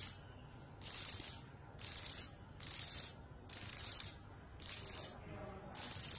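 Xóc đĩa chips rattling inside a bowl clapped over a plate as the set is shaken. It comes in regular shakes about once a second, six or seven in all, each a short hissy clatter.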